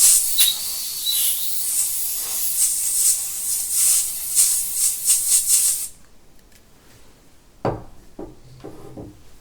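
Can of compressed air hissing in a string of short blasts into a phone's charging port to blow out debris, stopping about six seconds in. A single knock and light handling noise follow near the end.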